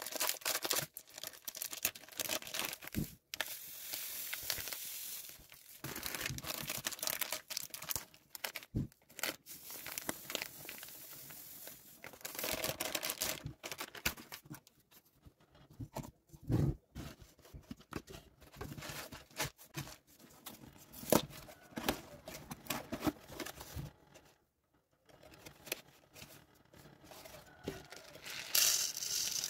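A plastic food packet being torn open and crinkled by hand, with irregular clicks and knocks from jars and plastic lids handled on a table. Near the end comes a steady rush as something dry is poured into a plastic tub.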